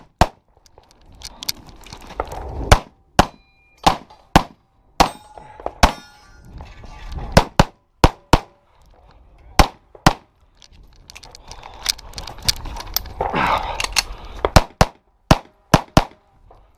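Handgun shots fired in quick strings with pauses between, some followed by the short metallic ring of hit steel targets.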